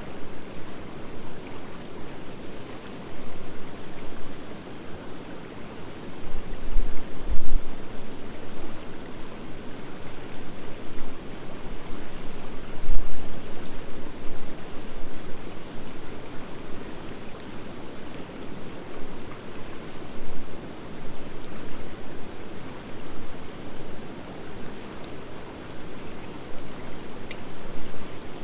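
Driftwood and hardwood bonfire burning with a steady rushing flicker and a few faint pops. Two low thumps come about 7 and 13 seconds in.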